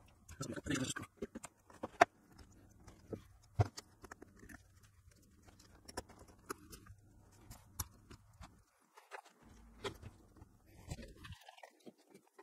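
Small handling noises of fingers working at the heat-shrink sleeving over a neon indicator lamp's series resistor: a short crinkle near the start, then scattered light clicks and taps.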